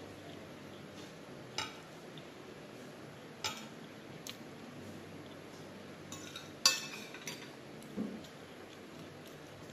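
A metal fork clinking against a plate while salad is picked up to eat: a few short, sharp clinks, the loudest about two-thirds of the way through, followed by a duller knock.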